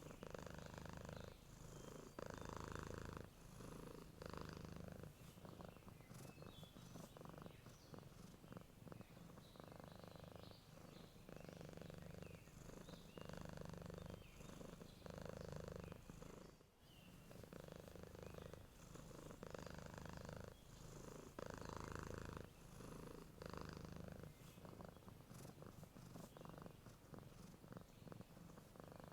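A sleeping domestic cat purring softly and steadily, the purr swelling and easing in a regular cycle of about two seconds with each breath in and out.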